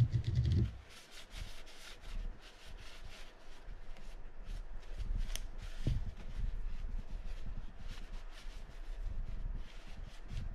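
Hands working on the parts of a Penn Senator 113H fishing reel at the bench: a sharp knock at the start, then light rubbing and many small clicks and scrapes of metal reel parts being handled.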